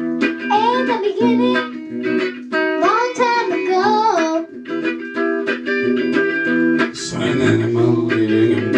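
Live music: a girl singing over an electric guitar. The singing stops about halfway through and the guitar plays on, growing fuller near the end.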